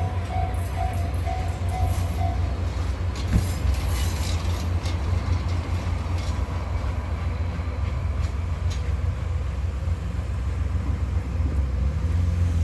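A train passing with a steady low rumble and a run of wheel clicks over the rail joints a few seconds in. A level crossing bell's repeating ding stops about two seconds in.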